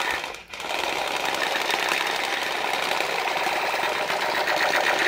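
Battery-powered Spider-Man light-up toy blaster sounding its electronic rapid-fire effect through its small speaker, a fast, buzzing, steadily repeating noise that drops out briefly about half a second in and then carries on.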